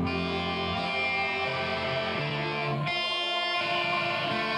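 Instrumental guitar music, an electric guitar carrying sustained chords that change every second or so.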